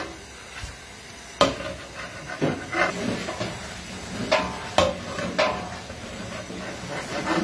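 A metal utensil clinking and scraping against a large metal cooking pot of freshly cooked white pulao rice, about six sharp clinks, some with a short metallic ring.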